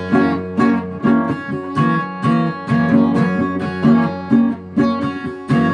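Acoustic guitar strummed in a steady rhythm, with chords ringing on under each stroke: an instrumental passage between sung lines of a song.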